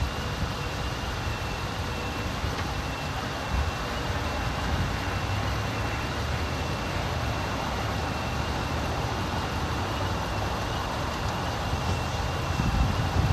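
Steady roadside traffic noise, a low rumble with a thin, continuous high whine running over it.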